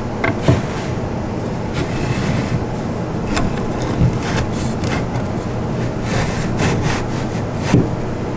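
A thin bottom board scraping and rubbing as it is slid down into the grooves of a doll bunk bed's frame, with a few light knocks along the way.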